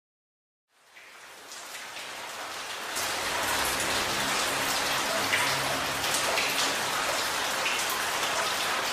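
Recorded rain falling, dense patter with scattered drop ticks, fading in over about two seconds and then holding steady, as the opening of a soundtrack.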